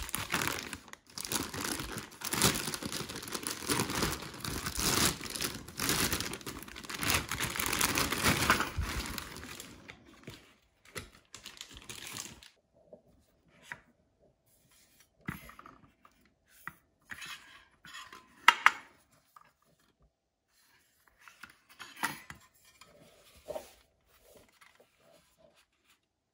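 Clear plastic bag crinkling and rustling loudly as it is pulled off a new cordless circular saw, for about the first twelve seconds. After that come scattered light clicks and knocks as the bare saw is handled, the sharpest two about two-thirds of the way through.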